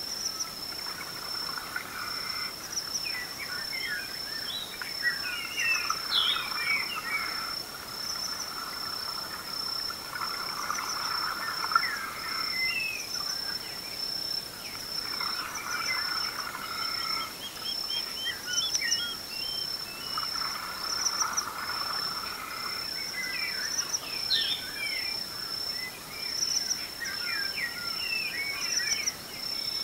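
Dawn chorus: several birds sing in bouts of quick, varied phrases over a continuous high-pitched trill. A lower, repeated call comes and goes every few seconds.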